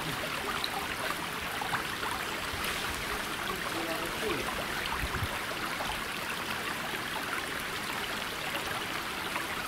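Steady rushing noise of running water, with a few faint knocks.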